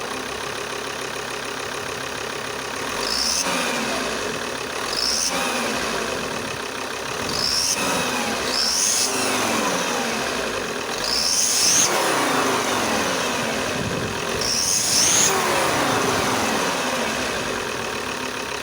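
Car engine idling and blipped about six times, each rev bringing a sharp high-pitched rasp from an exhaust leak at the exhaust manifold gasket, where exhaust gas escapes through the layers of the multi-layer gasket.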